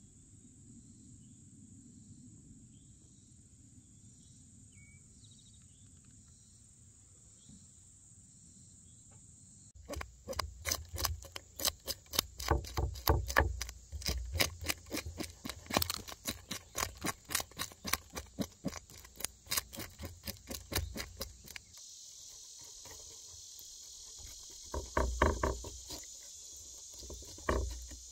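Knife blade scraping the scales off a crappie on a wooden cutting board: a fast run of short scraping strokes from about a third of the way in, then a few louder knife strokes near the end as the fish is filleted. Crickets chirr steadily underneath.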